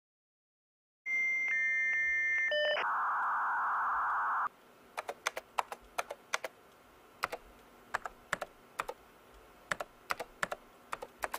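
A computer starting to connect, with steady electronic beeps and then a few seconds of static hiss like a dial-up modem. Then a computer keyboard is typed on in short runs of clicks.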